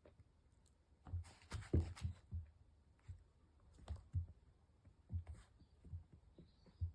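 Dogs' paws and claws clicking and thumping on a hard floor: a quick scrabbling flurry about a second in, then single taps and knocks every second or so.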